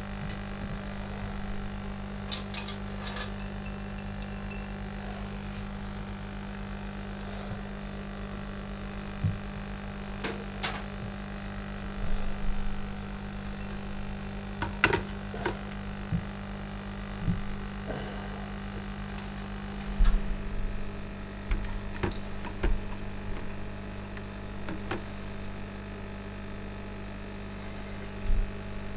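Steady electrical hum throughout, with a few light knocks and clinks as the wire-hung axles are handled in a plastic bucket of acid.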